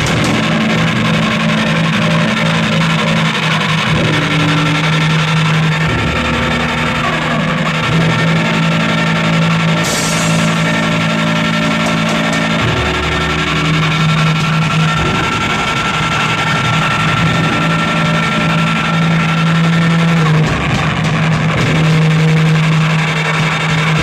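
Loud, distorted live rock music with guitar over a dense wash of noise, holding low drone notes that shift to new pitches every few seconds.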